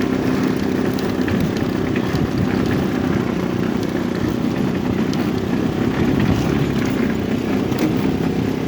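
Dune buggy engine running at a steady speed while the buggy is driven along a path.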